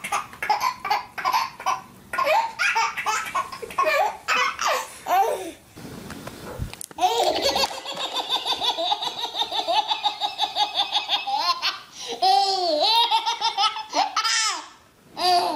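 Babies laughing hysterically in rapid, rhythmic belly laughs. After a brief break about six seconds in, a second baby's high-pitched laugh runs in long, fast, even bursts of several pulses a second.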